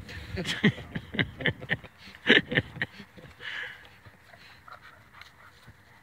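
Two dogs play-fighting: a rapid run of short, sharp growls and snaps during the first three seconds, loudest a little past two seconds, then it goes quieter.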